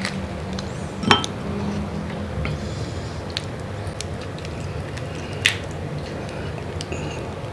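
Saucy prawns and crab being handled: soft wet squishing with two sharp clicks, one about a second in and one past the five-second mark, and a few lighter ticks.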